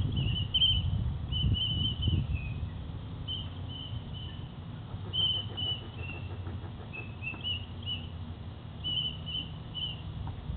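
Short, high chirping whistle notes in quick groups of two to four, repeating throughout, some gliding up or down in pitch, over a steady low rumble.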